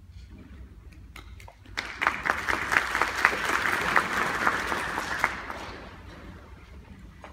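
Audience applauding after a band piece ends: a few scattered claps, then applause breaking out about two seconds in and dying away a few seconds later.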